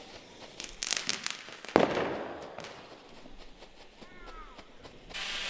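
Consumer fireworks going off: a quick cluster of crackles about a second in, then one sharp bang just before two seconds in that echoes away. Near the end a steady hiss starts, like a firework fountain burning.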